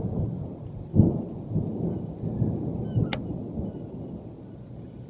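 Thunder rumbling, with a sharp crack about a second in, then rolling on and slowly fading.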